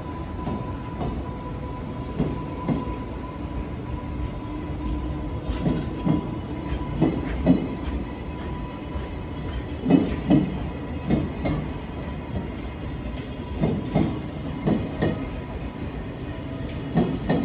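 Container flat wagons of a freight train (Koki 104 and Koki 107 type) rolling past, a continuous rumble broken by clusters of sharp wheel knocks, often in quick pairs, every second or so.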